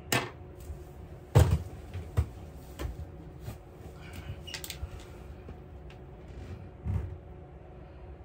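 Small scissors snipping the fishing line at the start, then a scattered run of knocks and clicks as tools and the hook are handled and set down on a tabletop. The loudest knock comes about a second and a half in. A faint steady hum runs underneath.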